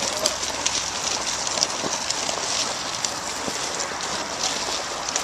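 Loose gravel crunching under the tyres of an off-road Segway and under feet, a steady crackling hiss with many scattered sharp clicks.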